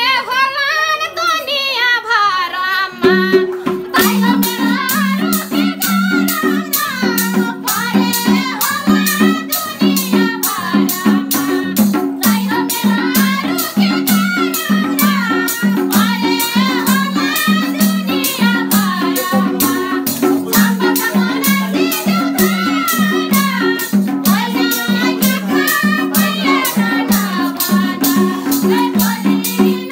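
Nepali dohori folk music. A sung phrase ends about three seconds in, and then a fast, even drum rhythm starts with a steady low accompaniment under a wavering melody line, as in an instrumental interlude between verses.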